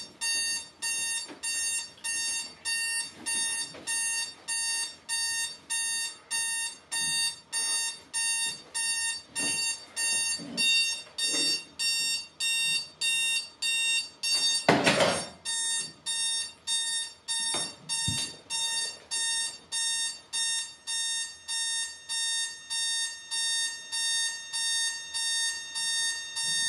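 Digital alarm clock beeping steadily, nearly two high beeps a second, without a break. About 15 seconds in there is a loud thump with a rustle, and a sharp knock a few seconds later.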